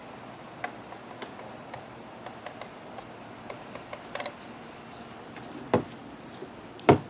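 Scattered light clicks and taps, then two louder knocks about a second apart near the end.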